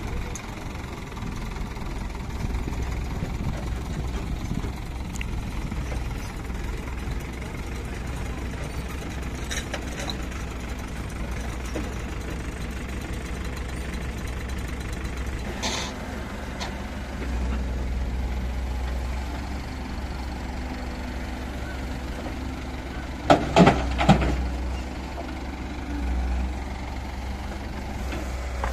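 Mahindra 575 DI tractor's four-cylinder diesel engine running steadily while it tows a trolley. Single sharp knocks come about ten and sixteen seconds in, and a short cluster of loud knocks about 23 seconds in.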